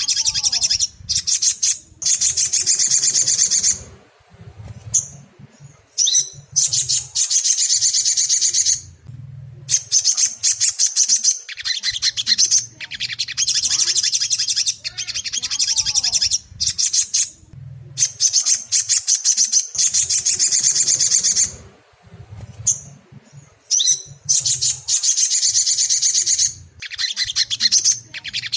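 Ruby-cheeked sunbird (sogon) singing: rapid, high-pitched trilling phrases a second or two long, repeated again and again with short gaps between them.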